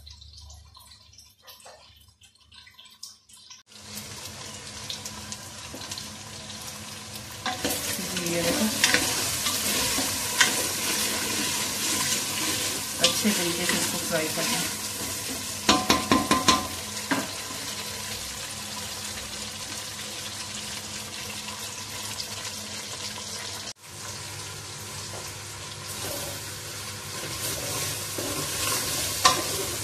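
Taro root (arbi) and potato pieces frying in oil in a large aluminium pot, with a steady sizzle that starts a few seconds in. A wooden spoon stirs and knocks against the pot several times in the middle.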